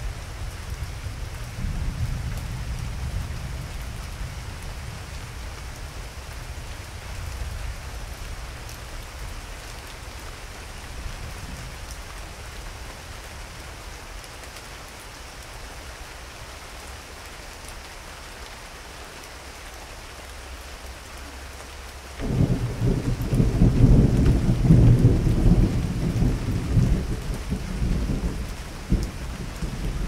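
Thunderstorm: steady rain hissing throughout while a low thunder rumble slowly dies away. About twenty-two seconds in, a sudden loud thunderclap breaks and rolls on in heavy rumbles, with another peak near the end.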